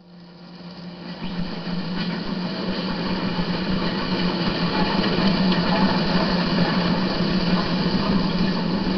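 Miniature diesel-outline locomotive's engine running with a steady hum, growing louder over the first few seconds and then holding.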